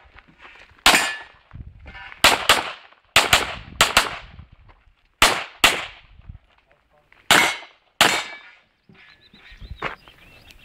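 CZ 75 SP-01 9 mm pistol fired in a practical shooting course of fire: about ten sharp shots over eight seconds, many in quick pairs a fraction of a second apart, with short pauses between as the shooter moves from one target group to the next.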